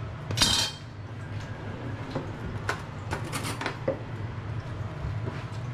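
Kitchen handling sounds: a sharp metallic clatter about half a second in, then light scrapes and taps as avocado is scooped out of its skin onto a plate, over a steady low hum.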